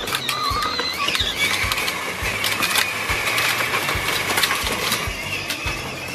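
Battery-powered Power Wheels Jeep Wrangler ride-on toy driving, its electric drive motors giving a steady high whine, with the plastic wheels clicking and knocking as they roll over grass and concrete.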